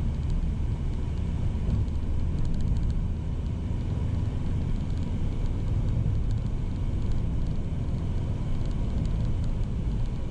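Van driving along a road, heard from inside the cabin: the engine and tyres make a steady low rumble.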